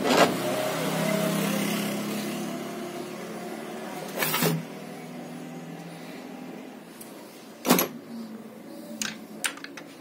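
A steady motor hum that slowly fades away over about five seconds, with a sharp knock midway and another near the end, then a few light clicks.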